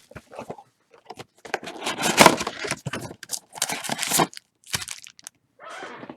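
Trading cards and foil pack wrappers being handled and rummaged through, in irregular bursts of rustling and crinkling with short pauses.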